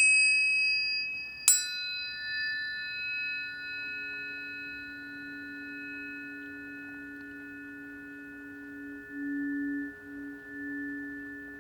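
Planetary tuning forks ringing: one struck just as the sound begins and a second about a second and a half in, their clear pure tones sustaining and slowly fading. The lower tone pulses near the end.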